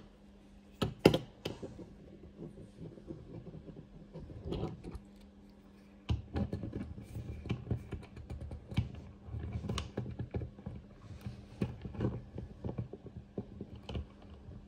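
Small plastic parts of an action figure being handled and pressed together as the Gadget 'Copter propeller is fitted onto the figure's head: scattered light clicks and knocks, with a louder pair of clicks about a second in.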